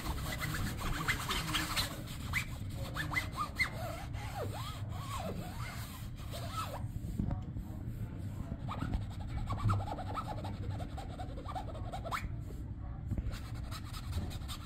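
Fingers scratching and rubbing on the fabric side of a pop-up play cube, a run of short scratchy strokes that thin out in the second half.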